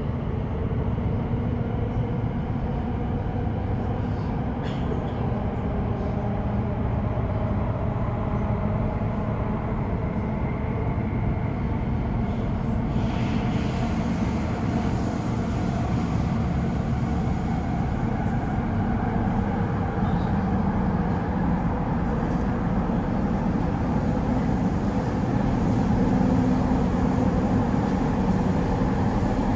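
Elizabeth line Class 345 train running through a tunnel, heard from inside the carriage: a steady rumble and hum, a little louder near the end.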